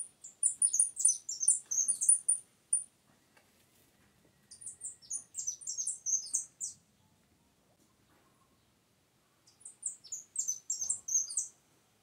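Saffron finch singing: three bursts of quick, high chirping notes a few seconds apart.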